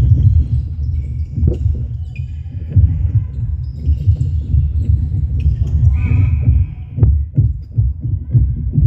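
Game noise on an indoor wooden court during netball play: a heavy low rumble with thuds and knocks of feet and ball on the floor, and a few short high squeaks, the clearest about six seconds in.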